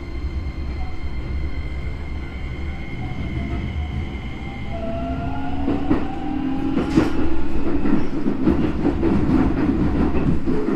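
Keisei 3200-series electric train heard from inside the car while running: a steady whine from the traction equipment, which about halfway through gives way to a rising whine as the train picks up speed. From then on the wheels rumble and clatter louder over the rail joints.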